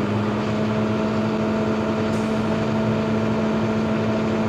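Class A truck's diesel engine held at raised revs with the gas pedal, a steady hum heard from inside the cab, while the air compressor builds air-brake pressure back up.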